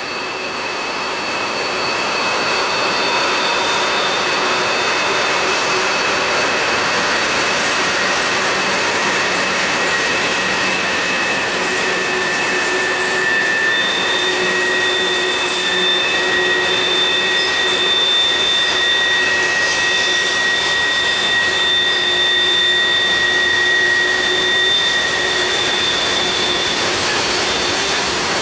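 Freight cars (tank cars, then covered hoppers) rolling past on a curve: a steady rush of steel wheels on rail. Over it, several high, thin squealing tones come and go, typical of wheel flanges squealing against the rail on a sharp curve.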